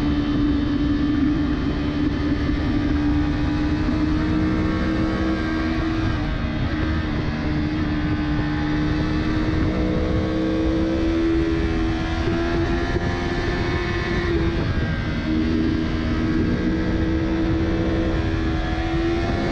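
Yamaha R3's parallel-twin engine running hard at high revs under steady throttle, its pitch stepping down and back up a few times. Heavy wind rush runs underneath.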